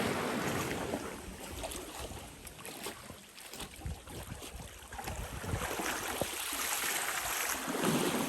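Sea water splashing and washing, in swells that rise and fall, with wind buffeting the microphone.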